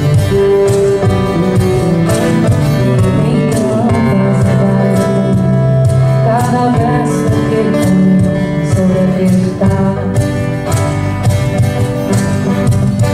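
Live acoustic band playing an instrumental passage of a pop ballad: two acoustic guitars with bass guitar and hand percussion, at a steady, unbroken level.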